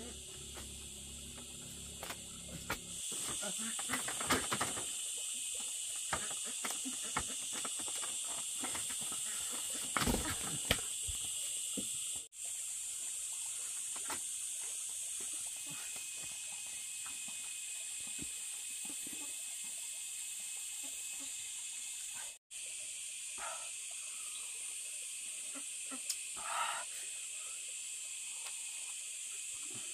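Steady high-pitched insect chorus, with scattered rustling and clicks through the first half and two short faint sounds near the end.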